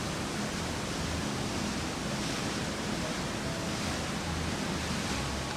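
Steady rushing noise of wind and water from a moving boat, with a low, uneven rumble of wind buffeting the microphone.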